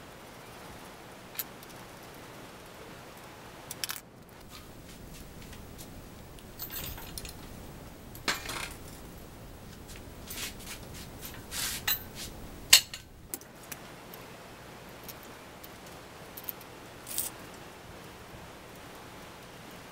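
Metal hand tools clicking and clinking against a bicycle's rear axle fittings, in scattered taps, with a busier run of clinks and the loudest sharp clink about 13 seconds in.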